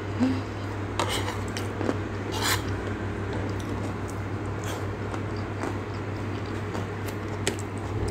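Eating sounds: chewing, and a metal spoon clinking and scraping on a plate, with a few sharp clicks, over a steady low hum.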